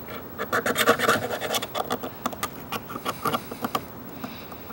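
Steel pocketknife blade scraping dried construction adhesive and rust off an old chisel: a quick run of short, irregular scrapes, loudest in the first two seconds, then lighter and more spaced out.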